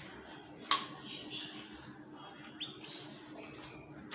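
One sharp click about a second in, then a couple of short, high bird chirps.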